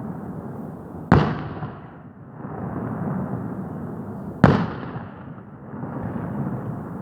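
New Year's Eve fireworks: two loud shell bursts about three and a half seconds apart, each trailing off in an echo, over a continuous rumble and crackle of other fireworks.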